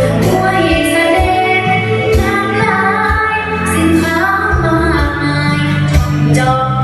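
A girl singing a Thai song into a handheld microphone, amplified over a PA, over instrumental accompaniment with bass and drums.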